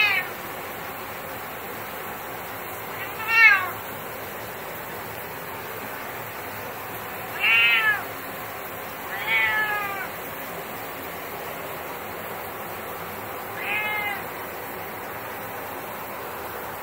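Grey domestic cat meowing five times, a few seconds apart, each one a short call that rises and then falls in pitch; the last is fainter. These are the protesting meows of a cat that hates the shower. A steady hiss runs underneath.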